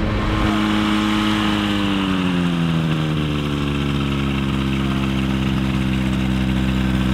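Airbike ultralight airplane's engine slowing over a couple of seconds, then idling steadily after the landing.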